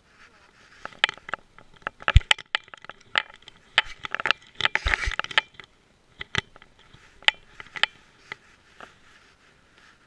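Rapid clicks, knocks and scraping from a camera strapped to a dog's neck, jostled as the dog moves and noses about. It is busiest in the first half, with a heavy knock about two seconds in and a burst of rustling with a thump about five seconds in, then thins out to scattered clicks.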